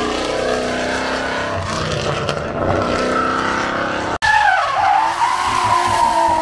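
Drifting car sliding with its engine running hard and tyres squealing. The sound drops out for an instant about four seconds in, after which a loud, wavering tyre squeal stands out.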